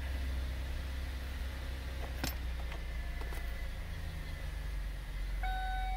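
Steady low hum inside a car cabin, with two faint clicks of the seat heater buttons on the climate control panel about two and three seconds in. A steady high tone starts near the end.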